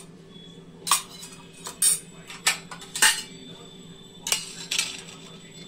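Steel spoon and a steel bowl clinking against a stainless steel plate as food is served and the bowl is set down: about six sharp metallic clinks.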